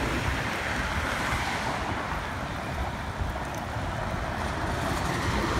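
Steady wind noise on the microphone of a camera carried on a moving bicycle, mixed with the rumble of road traffic.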